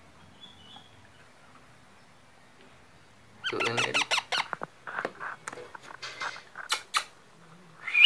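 Baby parrot chicks calling in a string of squeaky, pitched cries that start about three and a half seconds in, with a few sharp clicks near the end.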